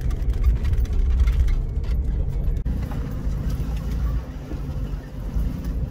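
Jeep Liberty driving on a dirt track, heard from inside the cab: a steady low engine and road rumble, with scattered light ticks in the first few seconds. The sound eases off about four seconds in.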